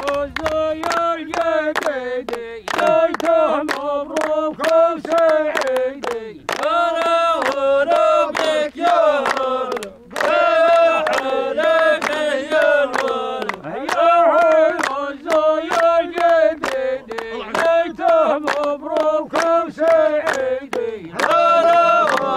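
A group of men chanting a Bedouin line-dance song in unison, with steady hand clapping at about three claps a second. The chant breaks off briefly about ten seconds in.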